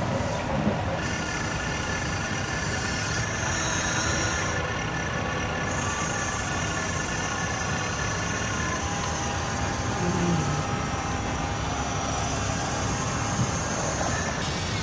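Electric motors of an RC excavator whining steadily as its arm lifts a plastic pipe off a trailer, the pitch drifting slightly as the motors change speed.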